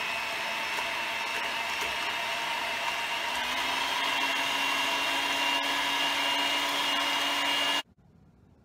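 Electric hand mixer running, its beaters whipping eggs in a stainless steel bowl: a steady motor whine that rises a little in pitch about three and a half seconds in, then cuts off suddenly near the end.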